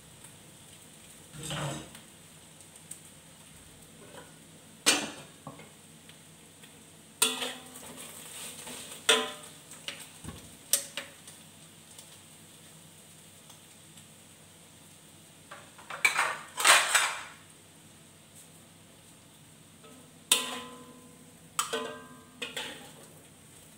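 Metal spatula scraping and knocking against a wok as fried food is stirred and scooped out. The clanks come scattered every few seconds, with the loudest cluster about two-thirds of the way through, over a faint steady hiss.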